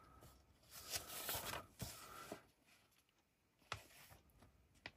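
Faint rustling and about four light clicks of plastic model-kit parts on their sprues being handled and turned over.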